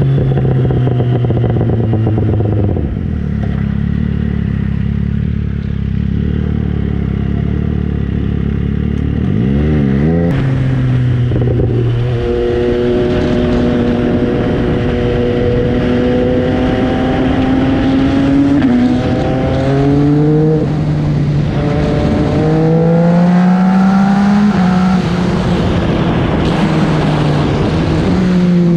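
MV Agusta Brutale 800's three-cylinder engine running under a rider. It holds a low, steady note for several seconds, then gives a quick rev about ten seconds in. From about twelve seconds it pulls up through the gears, the pitch climbing slowly and dropping back at shifts around twenty seconds and again near twenty-five.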